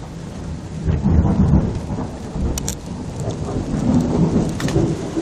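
Thunder rumbling over steady heavy rain. The low rumble swells about a second in and again near four seconds, with a couple of brief sharp clicks in between.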